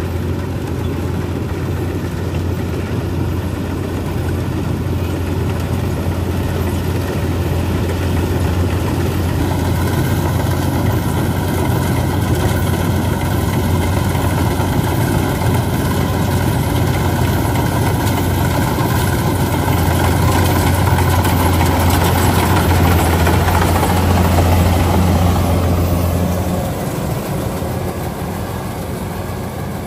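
Rice combine harvester's diesel engine running steadily with a deep hum. It grows louder towards the middle and then drops off a few seconds before the end.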